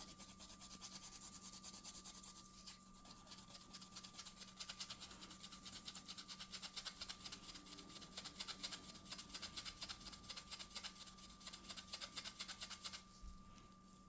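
Rapid back-and-forth scrubbing on a wooden revolver grip, an abrasive rubbed hard over walnut to strip its old finish, in quick even strokes several a second that stop near the end.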